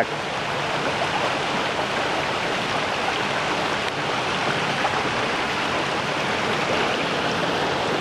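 Shallow river water rushing over rocks below a small waterfall: a steady, even hiss of flowing water.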